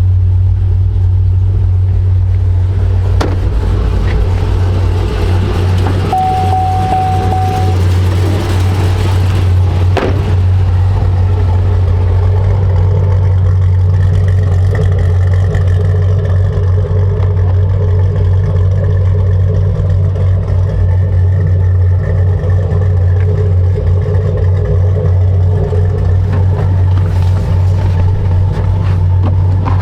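Supercharged 6.2 L LSA V8 of a 2010 Chevrolet Camaro 2SS running at a steady, even speed with no revving. A short steady beep sounds about six seconds in.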